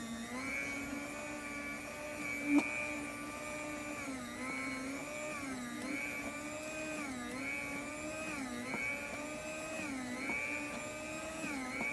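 Waring Pro FS800 electric food slicer's 130-watt motor running with a steady hum, its pitch sagging briefly every second and a half or so as the spinning blade cuts through salami. One short click about two and a half seconds in.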